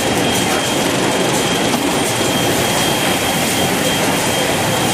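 XY-AI-398D automatic kitchen towel multi-roll packing machine and its roll conveyors running: a steady, dense mechanical clatter with a thin, high, steady whine through it.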